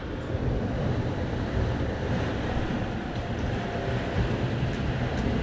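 Steady rush of wind and water around a sailing catamaran under way at about 9 knots, with a low wind rumble on the microphone.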